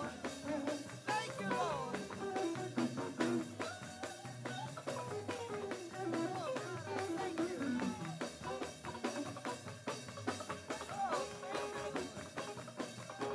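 Live worship band playing: a drum kit keeps a steady beat under a bass line, with a bending melody line on top.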